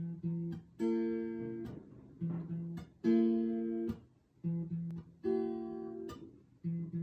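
Acoustic guitar playing a song intro. A lower chord is followed by a fuller, brighter strummed chord, and the pair repeats about every two seconds, three times over. Each chord is damped short before the next.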